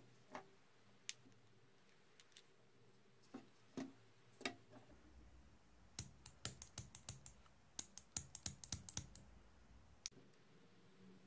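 Light clicks and taps of tweezers and small plastic parts being handled: a few scattered ones, then a quick irregular run of them in the second half.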